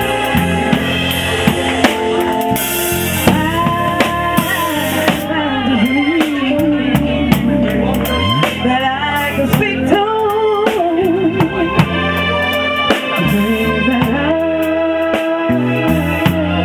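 A live soul band: a woman singing with vibrato into a microphone, backed by electric bass guitar and a drum kit with cymbals.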